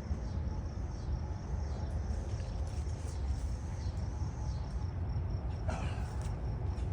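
Steady low rumble, with insects trilling high and steady in the background and one short sound about six seconds in.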